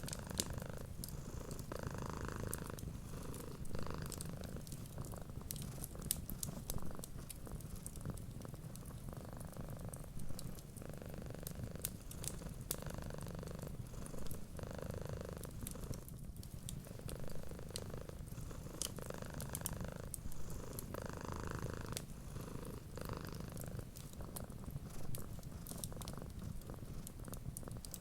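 A cat purring steadily, swelling and easing with each breath about every second or two, over the small crackles and pops of a wood fire.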